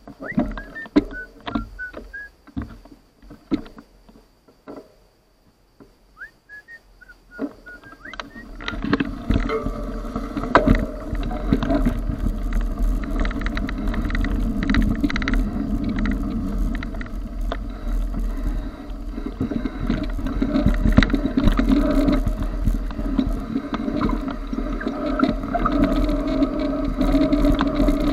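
Mountain bike ridden along a dirt forest singletrack: at first slow, with scattered knocks and rattles, then from about eight seconds in a loud, steady rumble of tyres on the trail with constant clattering as the bike picks up speed.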